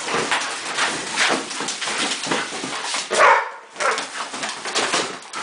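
Labradors ripping and scratching at a large cardboard box: irregular tearing, scraping and crumpling of cardboard, with a dog giving one short cry about three seconds in.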